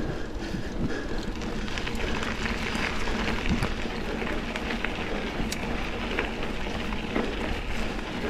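Mountain bike rolling along a dirt double track: a steady rush of tyres on the ground with many small crackles and rattles from loose grit and the bike.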